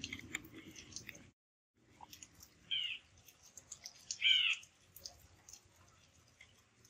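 Small screw being turned in with a screwdriver through a plastic bracket on a toy model car's body: light clicks and scraping, with two short high squeaks about three and four seconds in, the second the loudest.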